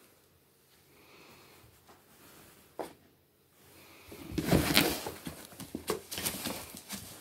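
A cat pouncing and scrambling at a cardboard box: a single sharp tap, then about three seconds of loud rustling and scraping with scattered knocks.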